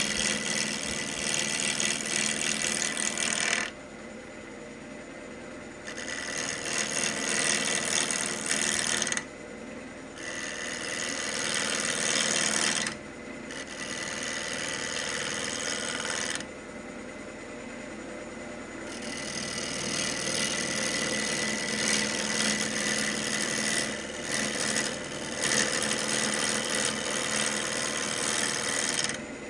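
Wood lathe spinning a pecan bowl blank while a bowl gouge cuts it in repeated passes. Each cut is a loud rushing scrape. Between cuts it drops away for a second or a few, leaving the lathe's steady hum.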